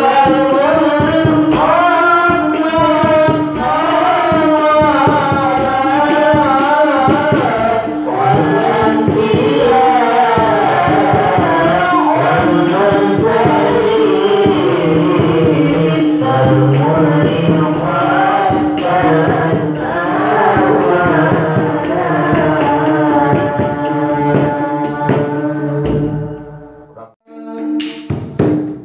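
A woman singing a sholawat (Islamic devotional song) through a microphone, with rhythmic percussion accompanying her. Near the end the sound drops away briefly as the recording cuts.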